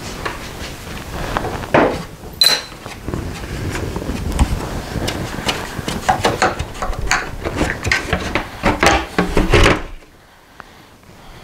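Hand tool and hard plastic clicking, knocking and rattling as the fasteners are undone and the plastic engine shroud of a Toro S-200 snowblower is lifted off. There is a sharp knock with a brief ping about two and a half seconds in, the knocks come thickest around six to ten seconds in, and the sound then drops away.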